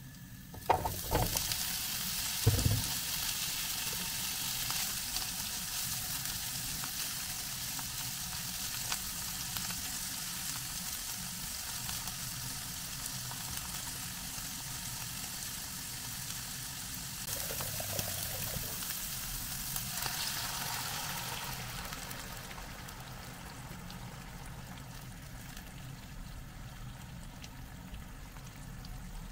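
Sliced green asparagus going into hot olive oil and garlic in a nonstick frying pan: two loud knocks about one and two and a half seconds in, then steady sizzling as the pieces fry while being stirred with a silicone spatula. The sizzle swells for a few seconds past the middle and eases a little near the end.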